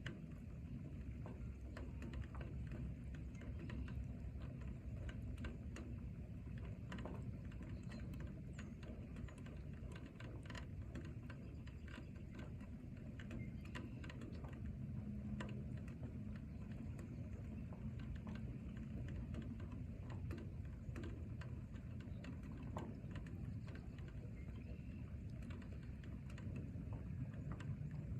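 Steady rain: a continuous low rush with many small, irregular drop taps scattered through it.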